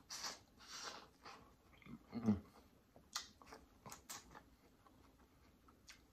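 Faint close-miked eating: chewing and wet mouth sounds, with a louder mouth sound about two seconds in and a few short sharp clicks between three and four seconds in.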